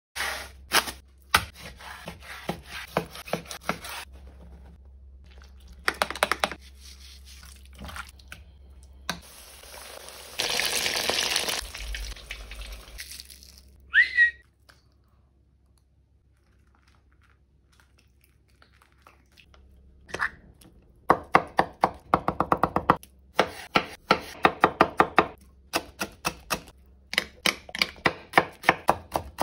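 Close-miked food-preparation sounds. There are crisp crackles and crunches at first, then a few seconds of steady hiss, a brief squeak, and a quiet pause. After that come runs of fast, even clicking and tapping, with a spoon stirring a thick mayonnaise sauce in a bowl near the end.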